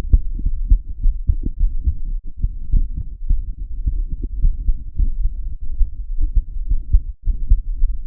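Human heartbeat picked up by a microphone held against the chest inside a bra: low, muffled thumps among many irregular low knocks.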